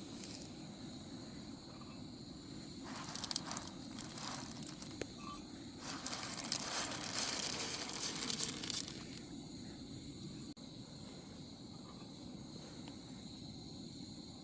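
Outdoor ambience with a steady high insect chirring. Roughly a third of the way in, a few seconds of rustling and crunching noise rise over it, then fade back.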